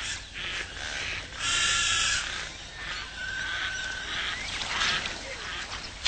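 Animal calls: several short calls, the loudest lasting under a second about a second and a half in, and a brief steady call about three seconds in.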